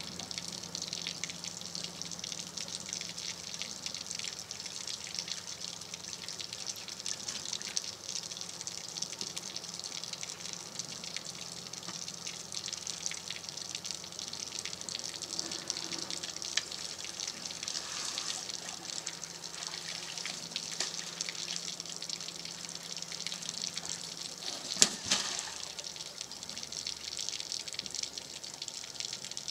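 Steady trickling and splashing of water with many small clicks over a faint low hum, and one sharp knock about 25 seconds in.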